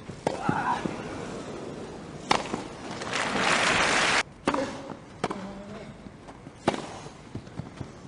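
Tennis balls struck with racquets in a rally, then the crowd applauding and cheering the point for about two seconds before it cuts off sharply. A few more single racquet strikes follow, spaced well apart, as the next point is played.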